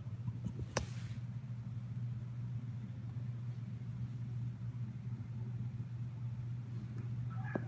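Steady low hum, with one sharp click about a second in. Near the end a cat starts to meow.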